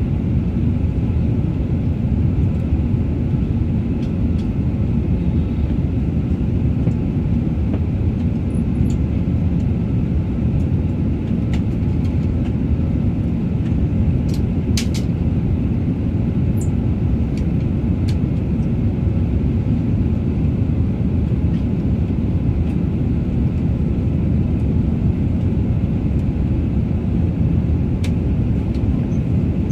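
Steady cabin noise of an Airbus A380 in flight, heard from inside at a window seat: a low, even rush of engine and airflow, with a few faint clicks.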